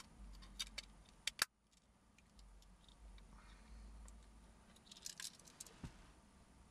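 Small plastic clicks and snaps from a broken remote car key's casing being handled and pressed back together. There is a sharp snap about a second and a half in and another run of clicks about five seconds in.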